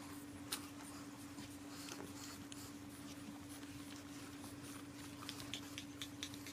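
Faint scratching and light tapping of pug puppies' paws and claws scrabbling on a padded playpen mat, with a sharp click about half a second in and a quick run of clicks near the end, over a steady low hum.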